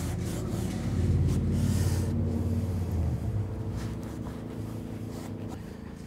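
Damp cloth rubbing and wiping dust off a plastic waterfall filter faceplate, over a low steady hum in the background.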